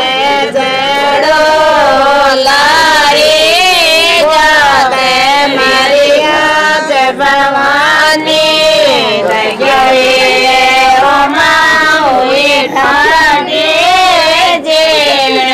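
A woman singing a devotional bhajan, one unbroken melodic line with a wavering, ornamented pitch.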